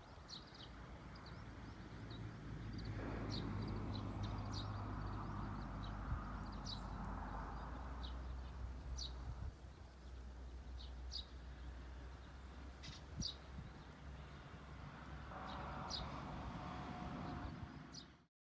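Short high bird chirps repeating about once a second over a steady low hum, with a louder hiss that comes and goes; all of it cuts off suddenly near the end.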